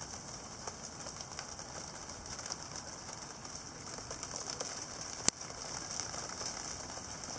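Convective rain shower with large drops: a steady hiss of rain with many irregular drop ticks pattering on a hard surface, and one sharp click about five seconds in.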